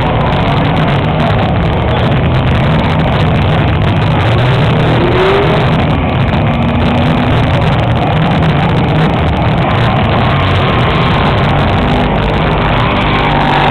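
Ford Mustang engines running on a race track, loud and steady under a thick noisy haze, with a red Mustang pulling up close near the end.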